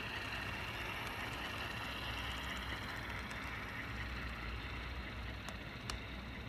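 Model Alco C630 diesel locomotive running on track. Its DCC sound decoder plays diesel engine sound through the small onboard speaker, mixed with a steady whir from the motor, drive and wheels. A couple of faint clicks come near the end.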